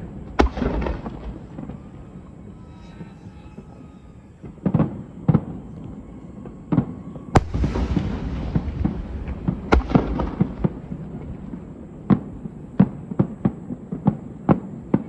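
Aerial fireworks bursting: scattered sharp bangs a second or more apart over a low steady rumble, then a quicker string of bangs, about two a second, in the last few seconds.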